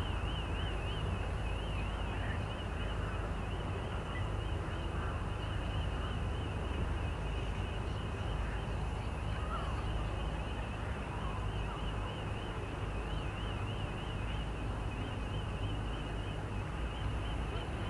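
A steady low rumble with a high, thin warbling tone above it that wavers up and down about three times a second.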